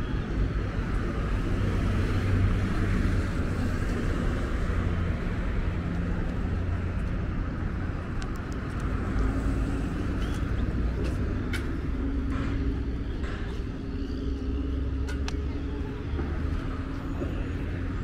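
Street traffic ambience: a steady rumble of cars on the road alongside, with a few short clicks in the second half.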